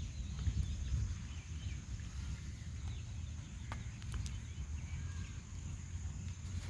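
Rural outdoor ambience: faint, scattered bird chirps over a low rumble, with a steady high-pitched whine and a few light clicks.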